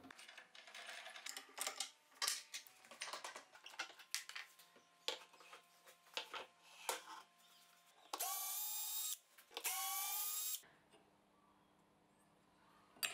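Scattered small clicks and knocks of wood and metal hardware being handled, then a cordless drill-driver whirring in two short runs of about a second each, as the band saw table's hinge screws are backed out.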